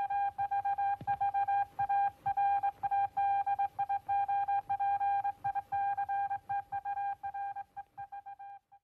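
Morse code sent as a single steady beep tone, keyed on and off in short and long elements at a brisk speed, fading out near the end.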